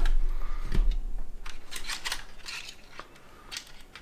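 Scattered small clicks and rustling from PC cables and parts being handled and tucked away, with a low bump of handling noise about a second in.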